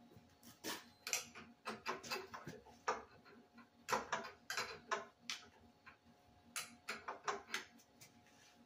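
Irregular metallic clicks and knocks of hand tools being handled at a milling machine, in short clusters, over a faint steady hum.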